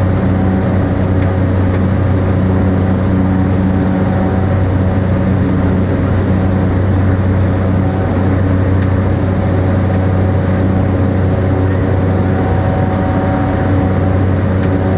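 Cessna Grand Caravan's single PT6A turboprop engine and propeller heard from inside the cabin during the climb after takeoff: a loud, steady drone with a deep hum and a few steady tones above it.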